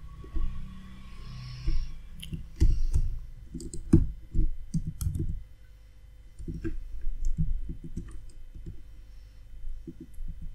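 Typing on a computer keyboard: irregular keystroke clicks in quick flurries, the busiest from about two and a half to five and a half seconds in and again around seven seconds, over a faint steady hum.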